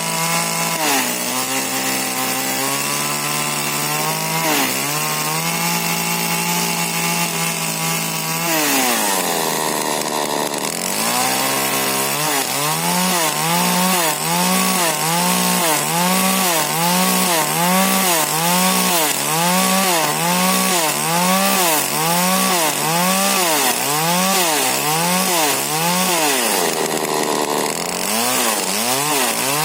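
Husqvarna 40cc two-stroke chainsaw with a modified exhaust running at high revs, cutting wood. The engine pitch dips and recovers about once a second under the load of the cut. Twice it drops back toward idle and revs up again.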